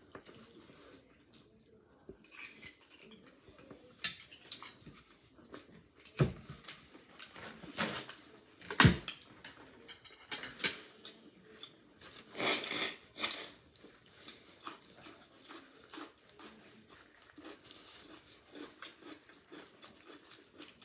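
Clam shells and a spoon clicking and clattering against each other and the bowl while steamed clams are eaten by hand, in scattered sharp knocks, the loudest about nine seconds in, with a denser rattle of shells around twelve to thirteen seconds.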